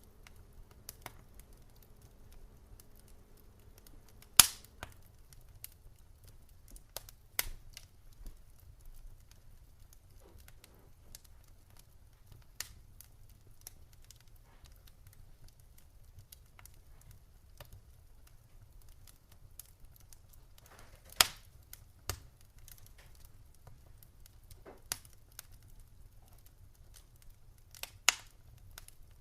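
Wood fire crackling in a fireplace: scattered sharp pops and ticks over a low steady rumble, with the loudest pops about four seconds in, about twenty-one seconds in and near the end.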